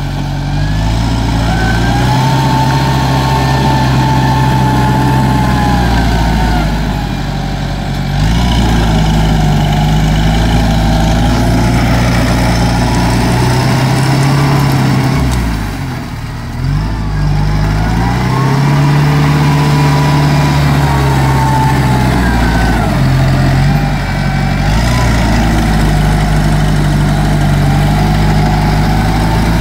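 Farm tractor's diesel engine running hard as it drives a rotary tiller through deep, flooded mud. The engine note rises and falls several times and sags briefly about halfway through.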